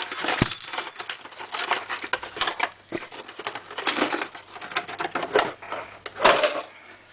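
Metal door-lock parts clinking and clattering as a freshly unpacked Yale 5-pin door lock set is handled: a run of irregular clicks and knocks.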